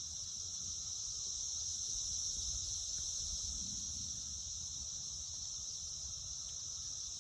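A chorus of many cicadas from a large emergence, a steady, unbroken high-pitched drone.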